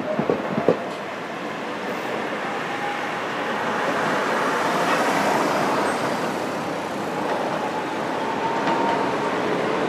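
Iyotetsu Moha 2100-series low-floor tram running along street track toward and past, a steady rumble of wheels on rail mixed with road traffic that swells toward the middle. A few sharp clacks sound about half a second in, and a faint high whine comes and goes.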